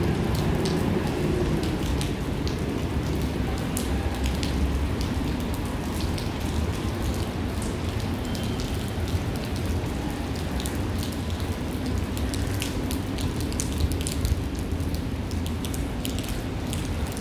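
Steady rain falling, with many sharp scattered drop impacts over a constant low rumble.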